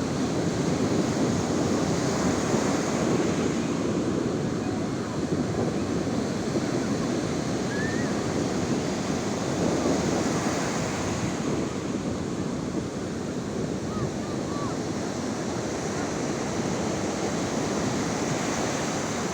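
Sea waves washing in and drawing back on the shore, a continuous rushing that swells and eases gently, with wind buffeting the microphone.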